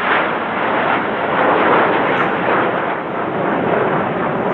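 Military jet flying over, a loud steady rushing noise.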